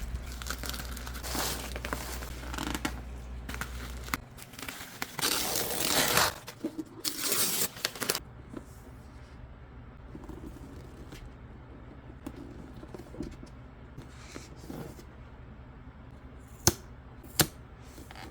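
Speaker box packaging being cut and torn open, with loud rasping tears for the first several seconds, then quieter handling of the box and two sharp clicks near the end.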